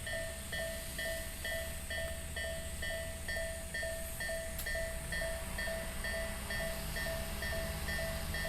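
Japanese level-crossing warning alarm of the electronic "Isesaki" tone type, sounding a steady repeating ding about two and a half times a second, over a low rumble.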